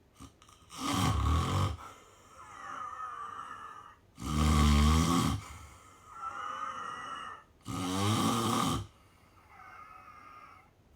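Snoring: three loud, low, rattling snores on the in-breath, about three and a half seconds apart, each followed by a softer, breathy out-breath.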